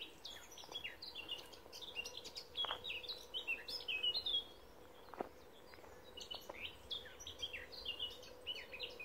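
A songbird singing in the trees: quick runs of short, high notes that pause for about two seconds midway, then start again.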